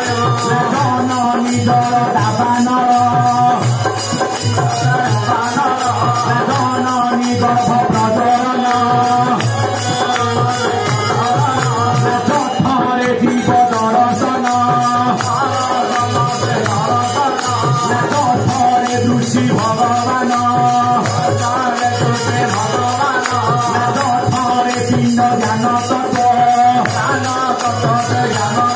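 Devotional song: a man singing a melodic line with instrumental accompaniment and a steady rattling, jingling hand-percussion beat.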